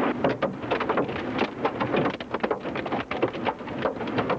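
Hailstones striking hard surfaces in a rapid, irregular clatter of many sharp hits, over wind noise on the camcorder microphone.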